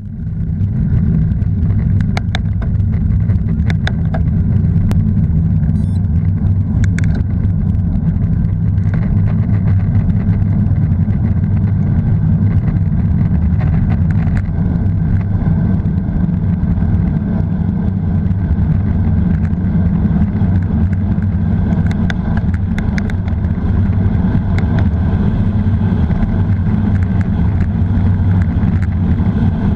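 Steady, loud rumbling noise of a road bike descending on asphalt, recorded from the bike itself: wind on the microphone mixed with tyre rumble, with a few sharp clicks scattered through it.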